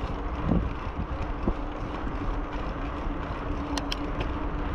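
Wind buffeting the microphone and tyre noise of a bicycle rolling along a paved road, with a faint steady hum underneath. Two brief high chirps come a little under four seconds in.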